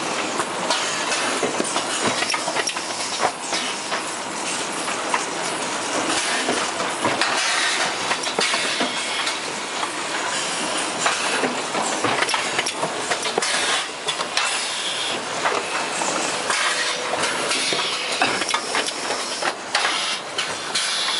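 Automatic carton packing line for welding-wire spools running: a steady mechanical clatter with a hiss of compressed air from the pneumatic grippers, and frequent short clicks and knocks.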